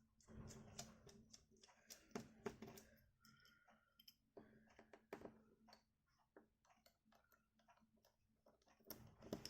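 Faint, irregular clicks and light taps of a small precision screwdriver working the tiny screws out of a Samsung Galaxy A90 5G's inner frame.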